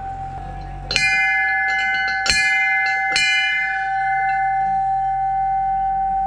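Temple bells ringing: three sharp strikes, about one, two and a quarter and three seconds in, each leaving a long ringing tone over one that was already sounding. The ringing cuts off suddenly near the end.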